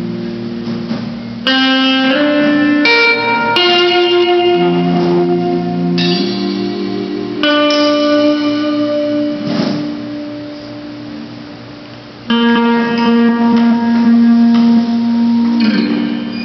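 Electric guitars playing live, striking chords and letting them ring out: several come in quick succession early on, then they fade into a lull before a new chord is struck about twelve seconds in.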